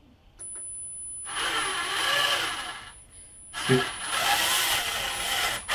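DC motors of a 3D-printed robot arm running under closed-loop control as the arm follows a trim-pot set point. There are two runs of a motor whine that wavers in pitch, the first a little over a second in and the second from about three and a half seconds in.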